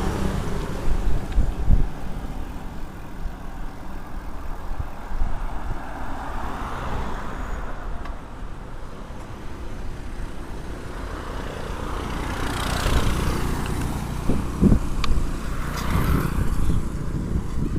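Road traffic heard from a moving bicycle, over a steady low rumble of wind on the microphone. Vehicles swell and fade past about a third of the way in and twice more near the end, with one sharp click between them.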